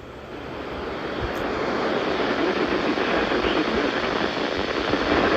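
Steady radio static hiss from a weather radio receiver, swelling up over the first couple of seconds and then holding level.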